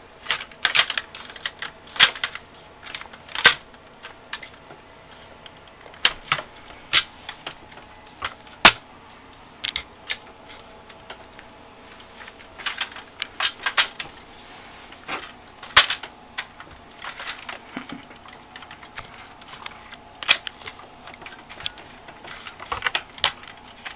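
Irregular clicks, knocks and light scrapes of the G&G L85 airsoft rifle's body parts being handled and pushed together as the upper half is fitted back onto the lower.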